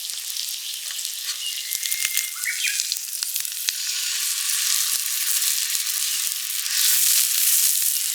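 Meat sizzling over a campfire: a steady hissing sizzle with many small crackling pops.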